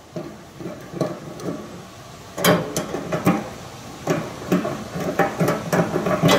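Clicks and light metallic knocks of a Phillips screwdriver and a small microwave turntable motor being unscrewed and worked loose from the sheet-metal base. The clatter grows sharper and more frequent about two and a half seconds in, as the motor is pulled free of its plastic mount.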